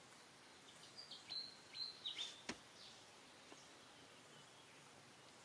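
A few short high-pitched chirping calls, quick downward sweeps and one briefly held whistle-like note, followed by a single sharp click; otherwise near silence.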